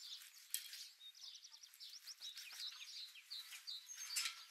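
Faint birdsong: small birds twittering in many rapid short chirps, with a couple of light clicks mixed in.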